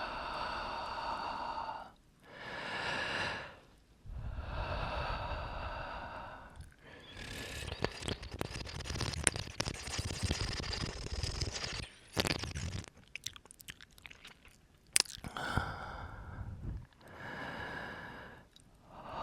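Close-miked ASMR breathing and mouth sounds: long, slow breathy exhales into the microphone, with a stretch of wet, crackly mouth clicks and smacks in the middle, then more exhales near the end.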